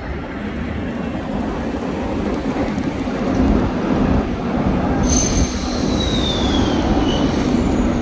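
Amusement ride machinery rumbling steadily. About five seconds in, a high metallic squeal starts and slides down in pitch, and a second falling squeal comes near the end, like steel wheels squealing on a roller coaster track.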